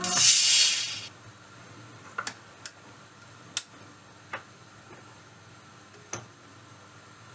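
Record playback through the valve radiogram ending: the music stops and a loud burst of hiss lasts about a second. Then faint amplifier hum with a handful of separate clicks as the Philips AG 1025 changer lifts its tonearm and returns it to the rest.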